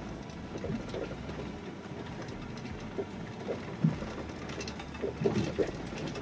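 Cabin noise of a 2007 Chrysler Town & Country minivan driving on a gravel road: steady tyre and road noise with a few short knocks and rattles, the loudest about four seconds in and a cluster near the end.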